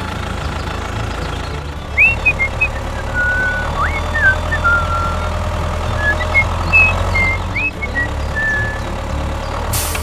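Steady tractor-engine running sound as the toy tractor drives, with a series of short whistled, bird-like chirps from about two to eight seconds in.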